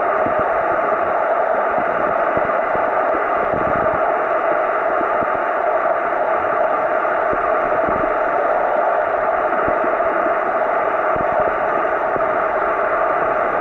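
Steady muffled rushing noise of a camera recording underwater in shallow water, with a faint constant hum and a few soft low knocks.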